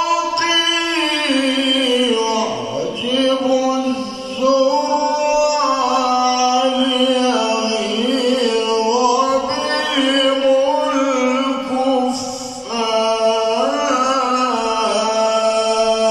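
A single male reciter chanting the Quran in melodic tilawa, unaccompanied, with long held notes and ornamented turns. He breaks briefly for breath about twelve seconds in, then begins the next phrase.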